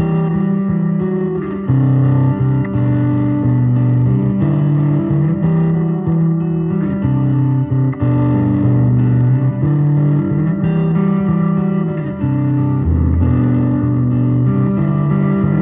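Electric guitar, a 1984 Gibson The SG, played through an Altergear effects pedal: sustained notes and chords that change every second or so, with the treble rolled off.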